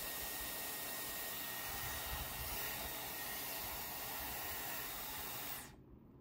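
Dyson Airwrap hair styler blowing air through its curling barrel, a steady rushing hiss, which cuts off suddenly near the end.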